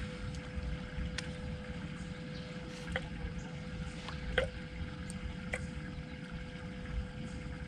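Steady low rumble and a thin steady hum from a bass boat holding position on calm water, with a few sharp clicks about every second and a half.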